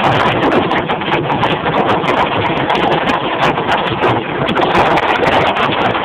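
Hail pelting a vehicle's roof and windshield, heard from inside the cabin as a dense, unbroken clatter of hits.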